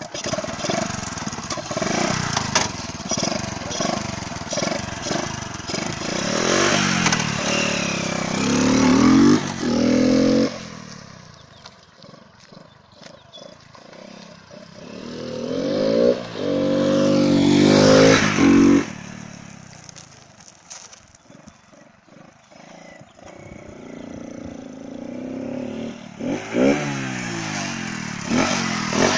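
Motorcycle engine running with its air filter element removed and only the filter support fitted, giving a completely changed intake sound. It idles and is revved up twice, climbing to high revs and dropping back to idle each time, with a few quick blips of the throttle near the end.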